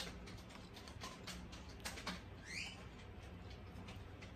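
Soft chewing and mouth sounds of someone eating, a scatter of small wet clicks and smacks, over a low steady hum. About halfway through comes one short, rising, high-pitched chirp.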